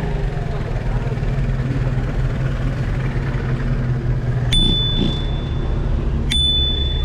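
A bicycle bell rung twice in the second half, a little under two seconds apart, each a sharp strike followed by a clear ringing tone that fades. Underneath, the low steady rumble of a car engine running close by.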